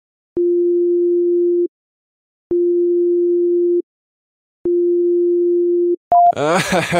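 Electronic sine-wave beeps: three long, identical low beeps, each starting with a click and lasting about a second and a half, with short gaps between. Near the end a single short, higher beep follows, the beep changing pitch.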